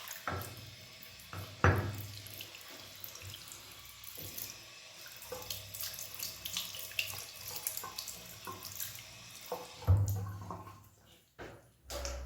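Water running and splashing, as at a sink, with small irregular clicks of wet handling and a few louder knocks, the loudest about ten seconds in.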